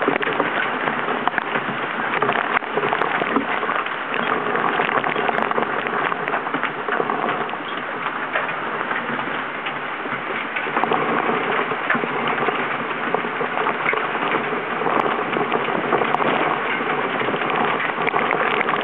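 Hurricane rain pelting the camera, a dense steady patter of close drop hits, easing slightly about eight seconds in and then heavier again.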